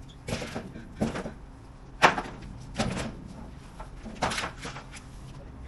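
A series of sharp knocks and bangs, about five at uneven intervals, the loudest about two seconds in.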